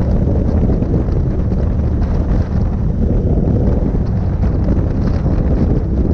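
Wind rushing over the microphone of a camera on a moving motorcycle, with the steady low drone of the Royal Enfield Interceptor 650's parallel-twin engine underneath.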